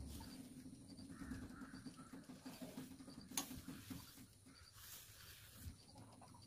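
Faint scraping and creaking of a spoon folding flour into cake batter in a plastic bowl, with one sharp click a little over three seconds in.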